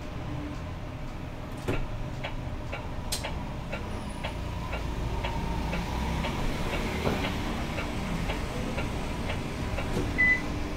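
City bus running in its cabin, with the turn-signal indicator ticking about three times a second for several seconds. A short, high beep sounds near the end.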